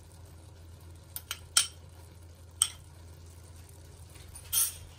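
Kitchen clinks: a small glass bowl and utensils knocking lightly against an aluminium cooking pot, four sharp clinks between about one and three seconds in, then a brief rustle near the end, over a low steady hum.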